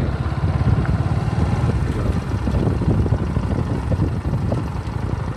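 Motorcycle running steadily while riding along, a continuous low rumble.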